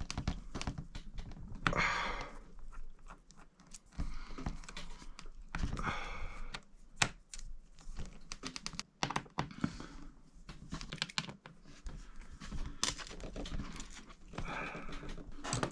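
Irregular small clicks and taps of a precision screwdriver working the hinge screws out of a laptop, with a few brief scratchy scrapes.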